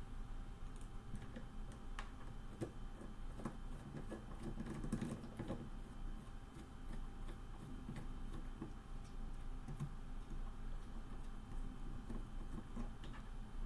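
Scattered light clicks and taps of a small screwdriver and screws being handled while the next screw is fitted and tightened.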